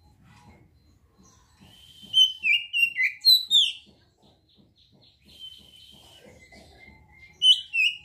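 Oriental magpie-robin (kacer) singing. It holds a whistled note, then gives a loud run of quick whistles that swoop up and down about two seconds in. A shorter loud phrase comes near the end.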